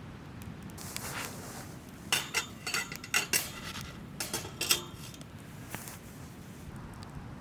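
Dishes and utensils clinking: a soft rustle, then quick runs of sharp clinks about two seconds in and again about four and a half seconds in.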